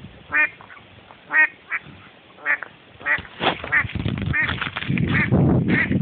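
Ducks quacking: single calls at first, then a quick run of quacks from about three seconds in. A steady rushing noise rises under them in the last second or two.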